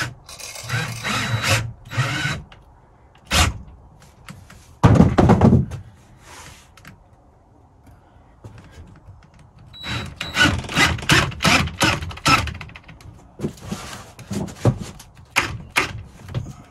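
DeWalt 18V cordless drill driver driving a long screw into a wooden block without a pilot hole, run in repeated short bursts of the trigger, with knocks and a heavy thump about five seconds in.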